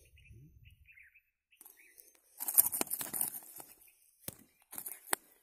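A freshly landed snakehead fish thrashing on dry grass and hard cracked earth: a loud rustling scuffle about halfway through, then two sharp slaps against the ground.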